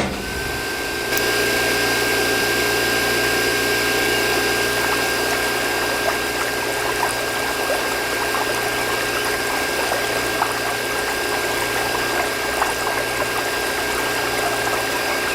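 Water pump running with water gushing steadily from its outlet, over a constant whine; it steps up louder about a second in.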